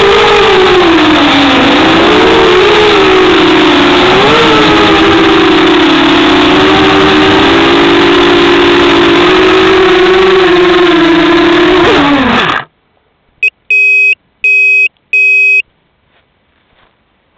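Onboard sound of a 250-size FPV racing quadcopter's electric motors and propellers whining, the pitch rising and falling with the throttle. About twelve seconds in the motors spin down and stop as the quad lands, then near silence broken by three short electronic beeps.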